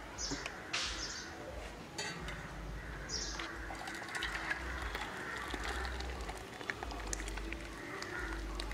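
Faint outdoor background with birds chirping, and a few light clinks of the steel pot against the steel serving bowl as thick dal is poured out.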